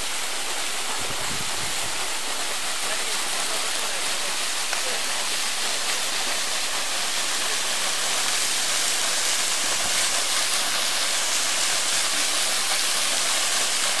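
Pshekha (Fisht) waterfall: water falling down a rock face and splashing onto the rocks at its base, a steady rushing hiss that grows a little louder about halfway through. Two brief low rumbles on the microphone, about a second in and near ten seconds.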